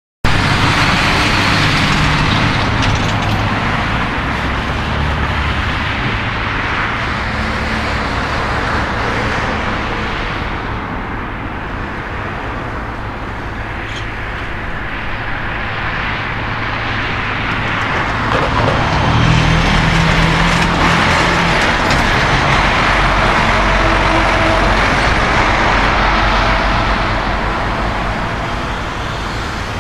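Airbus A330 jet engines at takeoff power during its takeoff roll, a steady broad roar that eases a little midway and swells again about two-thirds of the way through.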